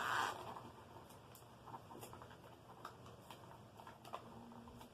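Light handling noises of plastic parts: a short rustle, then scattered small clicks and taps as a charging cord is fitted to the vacuum stand's cord clip.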